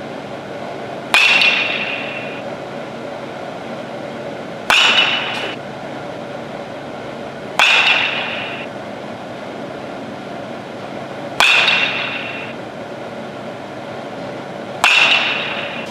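Baseball bat hitting a ball, five sharp cracks about three to four seconds apart, each with a short ringing tail.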